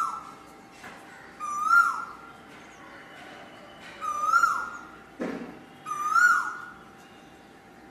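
Asian koel calling: a clear, pitched note that swings up and then down, repeated four times about every two seconds.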